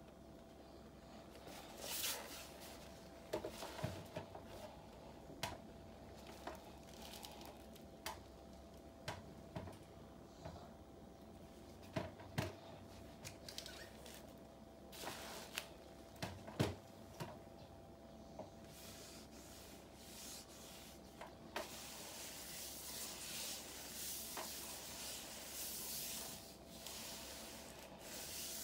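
An HP laptop being handled on a table: scattered light taps, knocks and rubbing as it is tilted and set down, then a steadier rustling for the last several seconds. A faint steady hum runs underneath.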